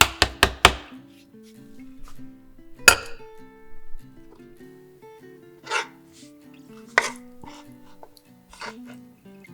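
Knife chopping on a cutting board: a quick run of chops in the first second, then a few separate knocks, over background music.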